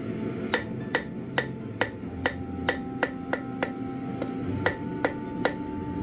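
Hand hammer striking a steel horseshoe on an anvil, about two blows a second, thirteen in all, each blow leaving a metallic ring. This is forging work.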